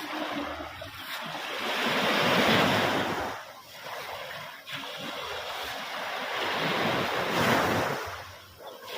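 Ocean waves breaking on the shore, a rushing wash that swells and fades twice, loudest about two seconds in and again near the end.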